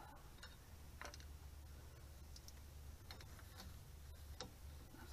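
Faint, scattered clicks of a socket ratchet working the nuts on the old axle retainer studs of a rear axle, a few irregular ticks a second or so apart over a low steady hum.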